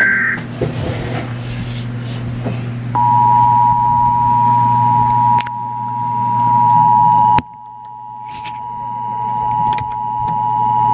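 Emergency Alert System attention signal: a steady two-tone beep at about 853 and 960 Hz. It starts about three seconds in, holds, and drops sharply in level about seven seconds in. At the very start the buzzy data burst of the alert header cuts off, and a low hum runs underneath.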